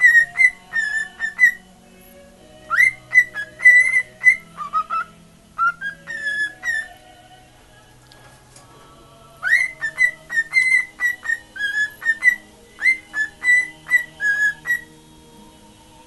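Cockatiel whistling a made-up song: phrases of short, quick notes, about three or four a second, mostly on one pitch with a few lower dips. The whistling breaks off for about two seconds midway, then resumes.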